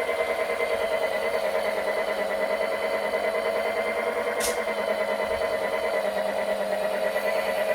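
Panasonic cordless wet-mop cleaner's motor running steadily, a humming drone with a rapid flutter. A brief hiss about four and a half seconds in.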